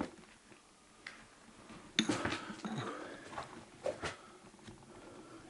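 Scattered knocks and scuffs from a person moving about, with the sharpest knock about two seconds in and a few more near four seconds, in a small quiet room.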